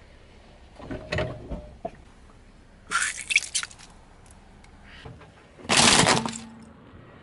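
Car tyre rolling over and crushing soft toys: short crunching bursts about a second in, a crackling squelch around three seconds as a liquid-filled squishy toy bursts under the tread, and a louder crushing burst near the end.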